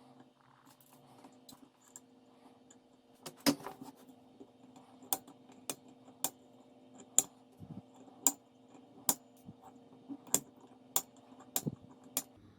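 Side cutters snipping the excess component leads off the underside of a soldered through-hole circuit board: about a dozen sharp clicks, roughly one a second, over a faint steady hum.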